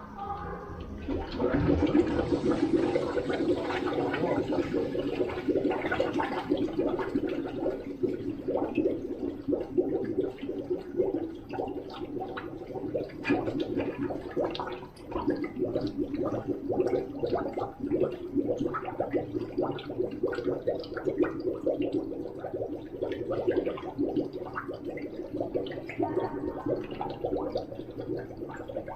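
Running water splashing and gurgling steadily, starting about a second in.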